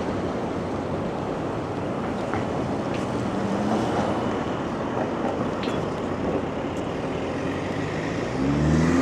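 Steady city street traffic noise: a continuous rumble of passing vehicles. A voice starts near the end.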